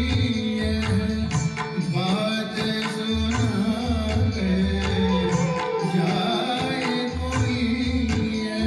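Thumri-style Hindustani devotional bhajan: a singing voice with tabla accompaniment.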